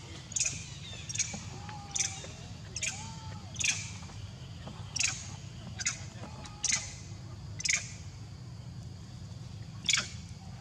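Short, sharp, high-pitched animal chirps repeating roughly once a second, with a few fainter lower arching calls in between, over a steady low hum.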